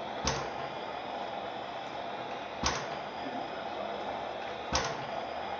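Blaisdell engine-compressor giving three sharp knocks about two seconds apart over a steady mechanical background noise.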